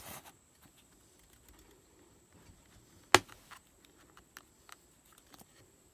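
Small handling noises from a Swiss Army knife with a rubber band wound around its screwdriver blade: a brief rustle at the start, one sharp click about three seconds in, then a few faint ticks.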